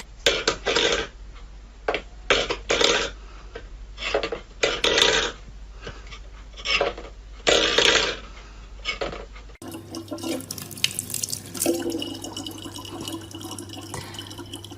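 Water splashing in a sink in short irregular bursts; after a sudden change about two-thirds of the way in, a tap runs steadily over a low hum.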